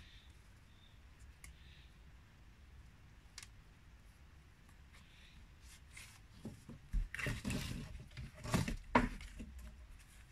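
Scraping and rustling from hands working on a rope-lashed wooden railing post and rail. It comes bunched into about two seconds in the second half, with one sharp knock near the end, after faint scattered ticks.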